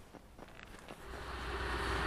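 Train 15D-114 approaching: a rumble and hiss that swells steadily from about a second in, after a few faint ticks.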